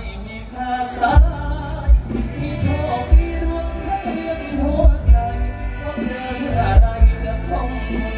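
Live mor lam stage-show music over a concert sound system: singing over an amplified band, with a heavy bass drum thumping about once a second.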